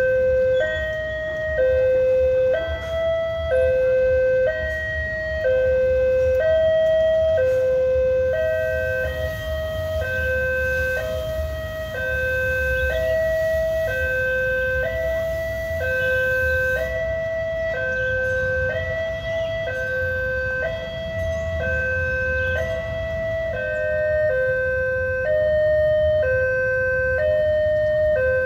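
Railway level-crossing alarm sounding its electronic two-tone chime, a lower and a slightly higher note alternating over and over, about one pair every second and a half. The alarm signals that a train is approaching while the barriers are down. Underneath runs a low rumble of traffic.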